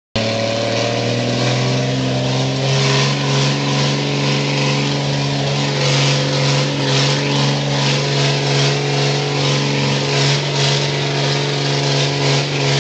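M35A2 deuce-and-a-half military truck's turbocharged multifuel diesel engine running steadily, with its pitch shifting slightly in the first couple of seconds.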